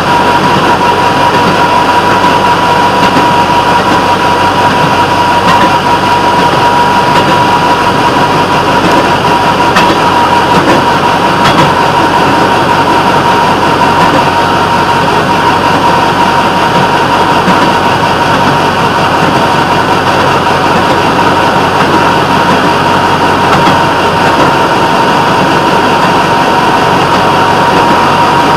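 Railroad motorcar (speeder) running along the track: steady engine and wheel-on-rail noise with a steady high whine.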